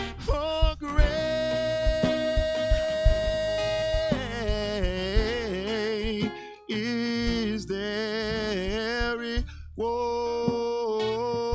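Live worship band playing: a male vocalist sings long held notes with vibrato over a drum kit, bass guitar and acoustic guitar, with a steady drum beat underneath.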